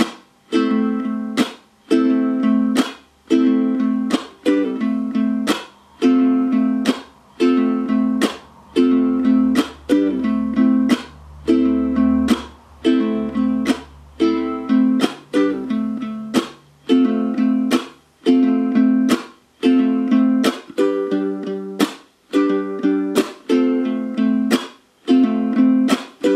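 Low-G ukulele strummed in a steady rhythm, switching between A minor and F chords, two strokes on each. Each stroke rings briefly and is then cut off sharply, about one every second and a quarter.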